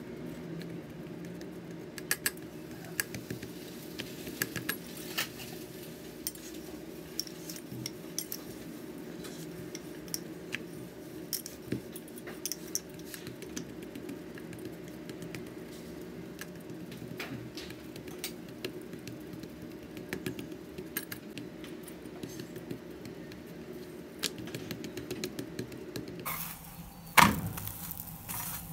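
Light scattered clicks and taps of a wooden rolling pin and hands working stuffed paratha dough on a marble rolling board, over a steady low hum. Near the end a paratha sizzles on a hot iron tawa, and a metal spatula strikes the pan once, loudly.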